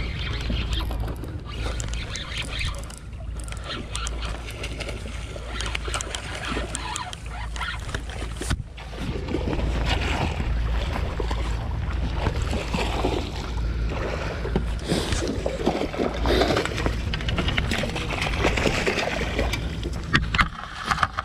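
Wind rumbling steadily on the microphone, with clicks and knocks of handling, while a chum salmon is played and landed with a landing net; from about nine seconds in the noise grows louder, with water stirring and splashing as the fish is brought to the net.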